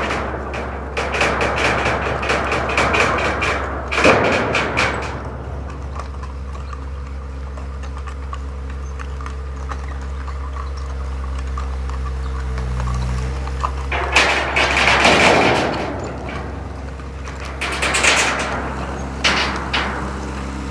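Cat skid steer's diesel engine running steadily, with bursts of metal clanking and rattling in the first few seconds, again about two-thirds through, and near the end.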